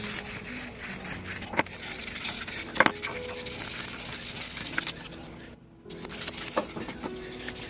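Fine 1500-grit sandpaper rubbed by hand over a small steel part of an antique monkey wrench, a dry scratching, with a few sharp clicks of the metal knocking the wooden bench, the loudest nearly three seconds in. The scratching drops away briefly about five and a half seconds in.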